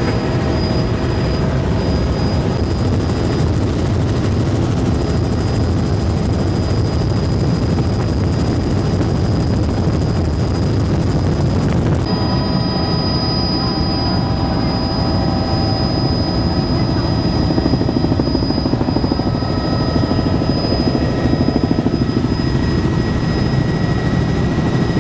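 Helicopter cabin noise in flight: the rotor and engine run at a steady, loud drone with a steady high whine above it. The sound changes abruptly about halfway through, the high hiss dropping away and the whine and several steady tones coming through more clearly.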